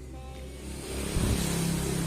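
A Honda GL motorcycle engine revs up briefly, swelling from about half a second in and loudest a little after a second, over background music.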